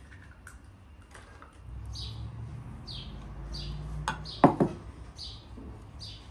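A small bird chirping over and over, short high chirps about twice a second. About four and a half seconds in there are two loud, sharp knocks, as of kitchenware handled on the wooden table.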